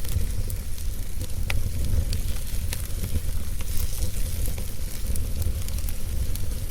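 Wood fire crackling, with irregular sharp pops and ticks over a steady low rumble.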